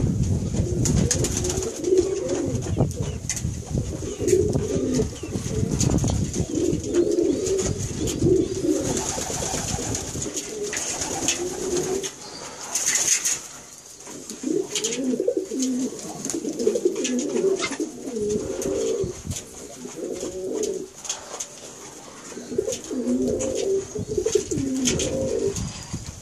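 Moroncelo pigeons cooing in repeated bouts, the courtship cooing of a pair being mated. A low rumble runs under the first ten seconds or so.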